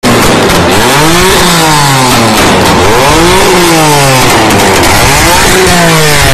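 BMW M4's twin-turbo straight-six revved hard again and again, very loud, the pitch climbing and falling back about every two seconds.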